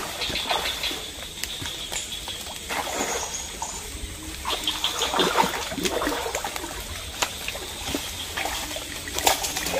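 Water splashing in irregular bursts as a snakehead strikes and thrashes at a surface lure, strongest around the middle. A sharp knock near the end.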